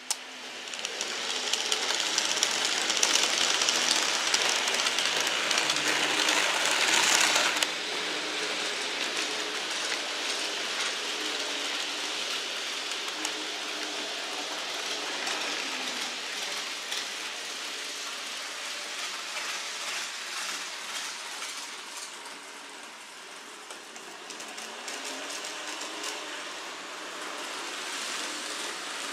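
N-scale model trains running on the layout's track: a steady whirring rattle of small wheels and motors with light clicking, loudest for about the first seven seconds, then dropping and carrying on more quietly.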